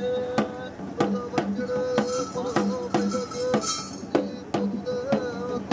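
Ritual drums beating at about two strokes a second, with a reed pipe holding a wavering note over them; a burst of bright metallic jingling sounds in the middle.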